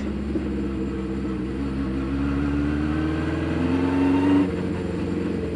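Honda CB500 Four's air-cooled inline-four engine pulling under acceleration, heard from the rider's seat. Its pitch rises steadily for about four seconds, dips about four and a half seconds in, then holds steady.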